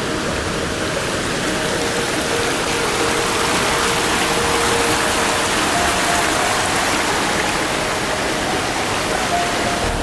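Fast-flowing stream water rushing over rocks and around stone stepping-stones, a steady loud rush.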